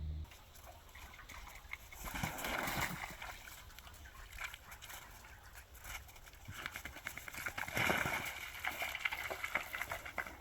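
Dogs moving about close by on wet snow and slush, with irregular rustling and pattering and two louder bursts of noise, about two seconds in and again around eight seconds in.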